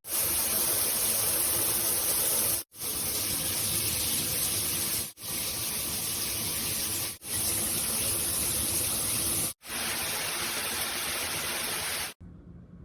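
Water spraying steadily from a Briout handheld shower head, in five stretches that each sound a little different, split by four very short breaks: the spray being shown on its different settings. The water cuts off suddenly near the end.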